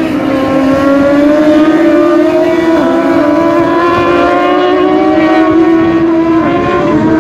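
Racing motorcycle engines at high revs as several bikes lap the circuit, a loud, continuous engine note whose pitch rises and falls slightly as they go through the corners, dipping a little near the end.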